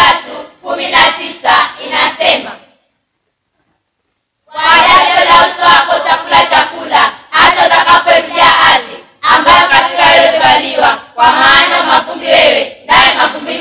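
A group of girls' voices in unison, chanting in phrases, with a second or two of complete silence about three seconds in.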